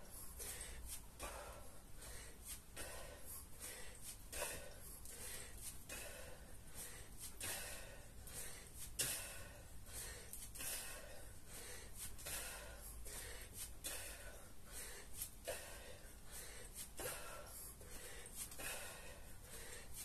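A man breathing hard from kettlebell-workout exertion: sharp, noisy breaths repeating about once a second, one louder than the rest about nine seconds in.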